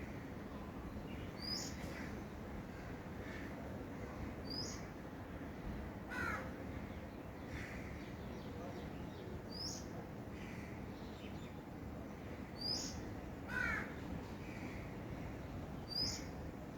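Birds calling outdoors: one bird repeats a short, high rising chirp about every three seconds, while twice a lower, harsher call sounds over a steady background hiss.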